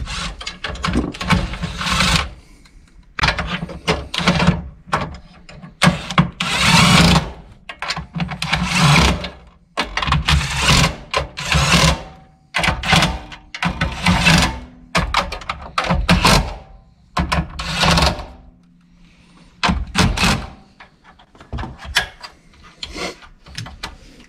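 Cordless impact driver running bolts on a Honda Insight's IMA battery/IPU box, in about a dozen short bursts of hammering with brief pauses between.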